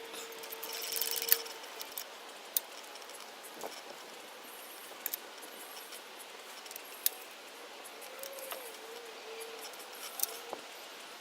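Scattered sharp metallic clicks and clinks of hand tools on the engine while the cylinder head bolts are tightened, with faint steady and wavering tones in the background.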